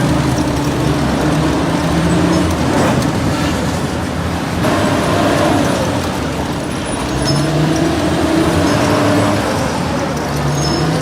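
Engine of heavy equipment running steadily, its pitch drifting up and down, with the sound changing abruptly about four and a half seconds in.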